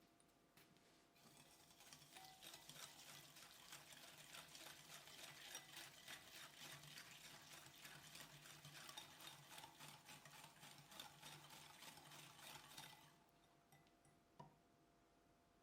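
Ingredients being stirred briskly in a mixing bowl: quick, regular strokes that start about a second in and stop near the end, then one light tap.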